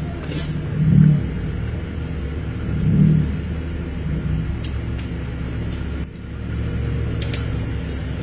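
Off-road SUV's engine running at low revs as it crawls over a rocky track, with two brief swells in revs about one and three seconds in.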